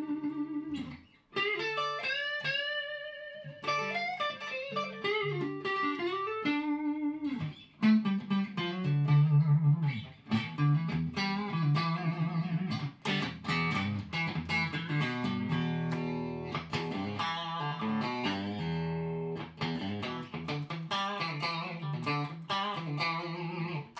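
Electric guitar, a Stratocaster with Fender Vintage Noiseless pickups, played through a stompbox compressor set to about halfway compression, with plenty of squish. First come long sustained notes with bends and vibrato, then from about eight seconds in a run of quickly picked notes and chords at an even level.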